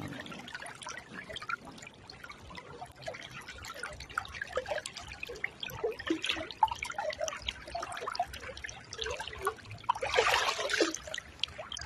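River water sloshing and trickling close to the microphone, a steady scatter of small splashes from wading through waist-deep water, louder for a moment about ten seconds in.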